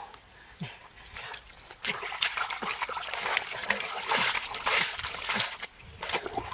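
Hands churning and slapping through mud and shallow water while groping for fish, with irregular splashes that grow busier and louder through the middle.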